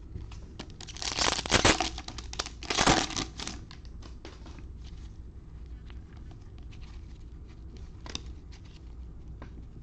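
Foil wrapper of a Panini Prizm trading-card pack torn open and crinkled in gloved hands, with two loud spells of crinkling about one and three seconds in. Softer rustling and light clicks follow as the cards are slid out of the pack.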